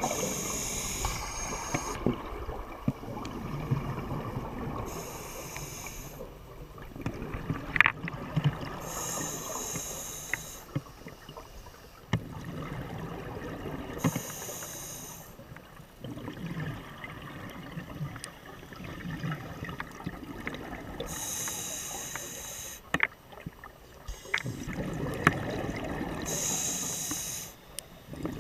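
Scuba diver breathing through a regulator underwater: a short hiss of inhalation every few seconds, followed by gurgling bursts of exhaled bubbles, with scattered sharp clicks.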